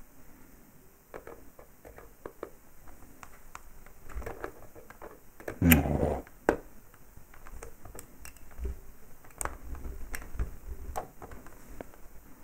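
Side cutters working at the leads of a stainless-steel fused Clapton coil: scattered small metallic clicks and handling noises, with a louder bump about six seconds in. The wire is not cutting through.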